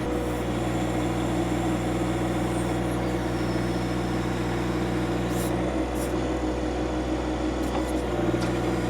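John Deere 2025R compact tractor's three-cylinder diesel engine running steadily under backhoe work, with a couple of faint knocks about five and six seconds in.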